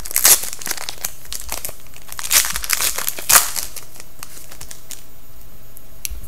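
Hockey trading-card pack wrapper crinkling and tearing as it is pulled open and off the cards by hand: a run of sharp crackles, loudest in the first three and a half seconds, then quieter handling.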